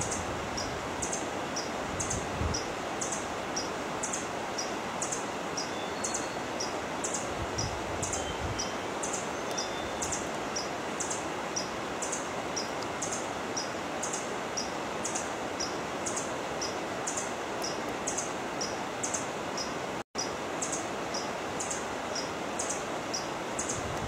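Forest ambience: a steady hiss like wind through leaves, with a short high chirp repeating evenly about one and a half times a second. The sound cuts out for an instant near the end.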